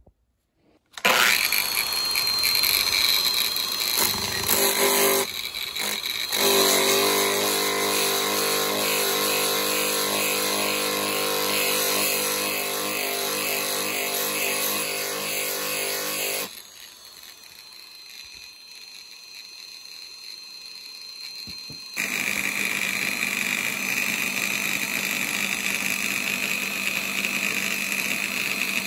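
Metabo angle grinder with a sanding disc starting up about a second in and grinding the steel handle of a pipe wrench, a steady loud whine with the disc scraping on metal. It drops much quieter for several seconds past the middle, then runs loud again.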